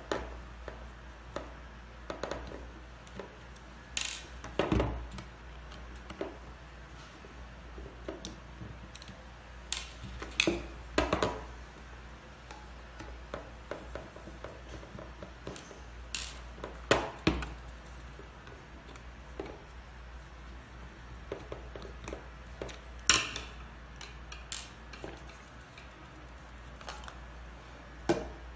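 Scattered clicks, taps and clinks of a screwdriver, small metal bolts and the plastic housing of a KING-AIR KA-300AP air-line water separator against a hard tabletop as the unit is unbolted and taken apart. A handful of louder knocks stand out among them.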